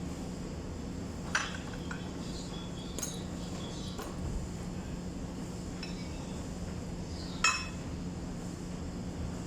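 Hand tools clinking against metal fittings while parts are taken off a truck's power steering pump: a few scattered metallic knocks, the loudest about a second and a half in and near the end, over a steady low hum.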